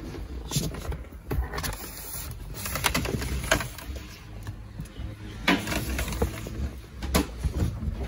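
Scattered light clicks and knocks, a second or more apart, from hands handling audio cables and trim while routing RCA leads through a car, over a low steady background.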